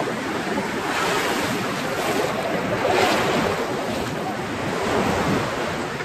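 Sea surf washing on the beach, a steady rushing that swells and eases a few times.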